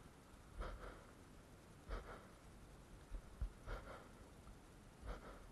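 Faint breaths close to the microphone, a short puff about every one and a half seconds, over quiet outdoor background.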